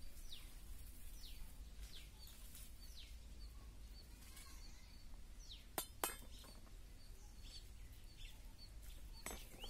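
A bird calling over and over: short falling whistles, about one a second. Two sharp snaps just before six seconds in.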